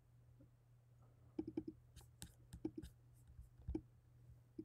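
Soft clicking at a computer: a few scattered clicks, some in quick little groups, starting about a second and a half in, over a faint steady low hum.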